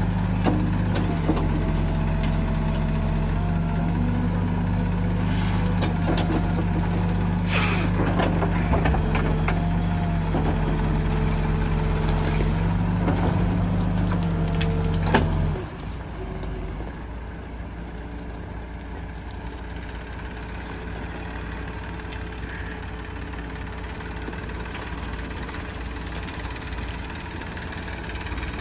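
Diesel engines of a Case 770 backhoe loader and a tractor running steadily. About halfway through, after a sharp clank, the nearer engine's heavy hum stops abruptly, leaving a quieter engine sound as the loaded tractor pulls away.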